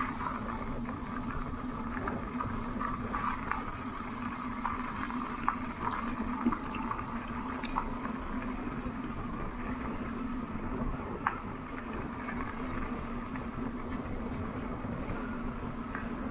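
Lectric electric bike riding along a dirt and gravel trail: steady tyre and wind rumble with a constant hum, and a few sharp clicks from bumps in the path.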